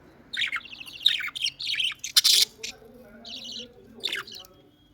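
Bird chirping in quick clusters of short, high calls, with one louder, harsh squawk about two seconds in.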